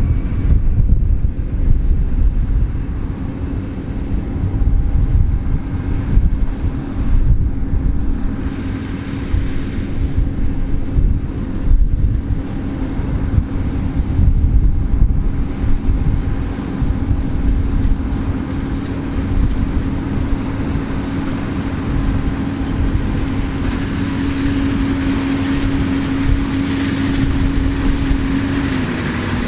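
New Holland CR11 combine harvester running while it harvests barley: a steady machine hum carrying one constant tone, with a gusty low rumble over roughly the first half. The tone drops slightly near the end.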